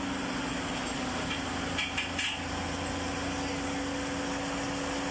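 A steady low hum with hiss, and a few faint clinks or knocks about two seconds in.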